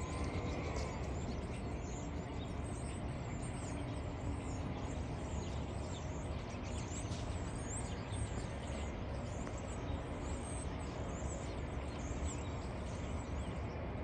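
A large flock of blackbirds calling all at once: a dense, continuous chatter of short squeaky chirps and whistles, over a steady low rumble of traffic.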